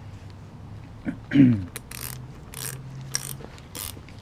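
A 14 mm ratcheting wrench clicking in short bursts about every half second as it tightens the nut onto a new shock absorber's top stud, with a brief falling squeak about a second in.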